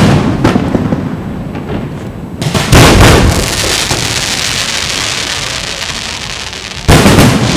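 Aerial fireworks shells bursting: a boom dying away at the start, another about two and a half seconds in and a third near the end, with a steady crackling hiss between them.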